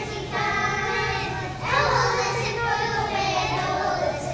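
A group of young children singing together in unison, with a new phrase starting loudly about halfway through.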